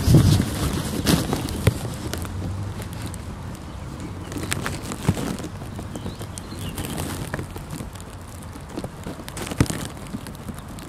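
Outdoor background noise: a rumbling, noisy stretch right at the start, then a steady hiss with scattered light clicks and taps.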